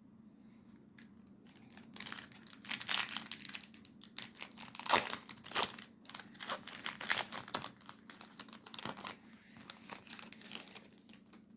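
Foil wrapper of a Topps Chrome basketball card pack crinkling and tearing as it is opened, in quick irregular crackles.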